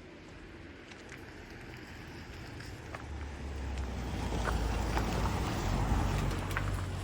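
A motor vehicle drawing near and passing, its engine hum and road noise growing steadily louder to a peak about five to six seconds in, then easing slightly. Faint scattered ticks run underneath.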